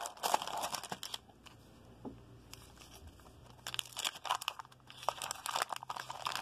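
Wrappers of a 1988 Fleer baseball card rack pack crinkling and tearing as a wax pack is pulled out and opened by hand. The crinkling stops after about a second and starts again a little past halfway.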